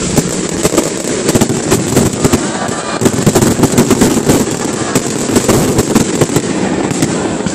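Aerial fireworks bursting overhead: a dense, rapid run of bangs and crackles from shells exploding in quick succession, loudest through the middle.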